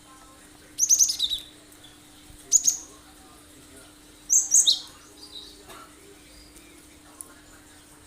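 Cinereous tit singing: three short bursts of sharp, high-pitched notes, each sweeping downward, spaced about a second and a half apart, followed by a few faint softer notes. A faint steady low hum lies underneath.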